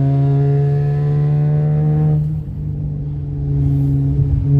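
Dodge Challenger SXT's V6 engine breathing through a new Spectre cold air intake, running at raised revs: the engine note holds high, falls back about two seconds in, and climbs again near the end.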